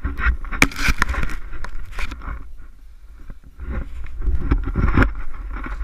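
Snowboard sliding and carving through deep powder snow, a rushing swish in two spells with a quieter lull between them, over a steady low rumble of wind on the camera's microphone. A few sharp knocks come about half a second to a second in.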